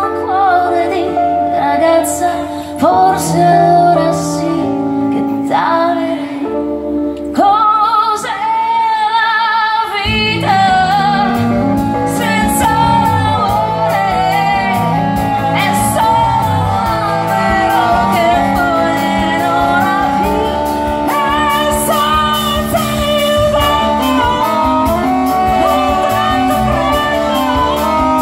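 Live band music with a woman singing lead over keyboard, upright bass and drums. The accompaniment is light at first, and about ten seconds in the full band comes in with a steady beat under the voice.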